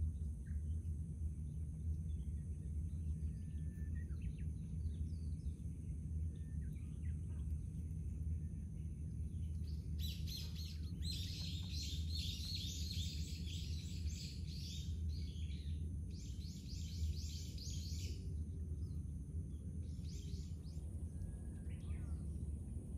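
Outdoor ambience: a steady low rumble with faint high steady tones, and a rapid, high-pitched chirping call that comes in three bursts, a long one about ten seconds in, a shorter one a few seconds later and a brief one near the end.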